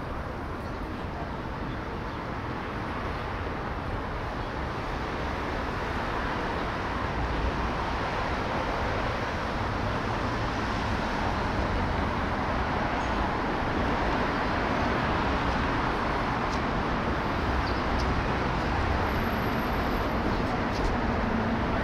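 City street ambience: a steady wash of traffic noise that grows gradually louder, with a low engine hum coming in near the end.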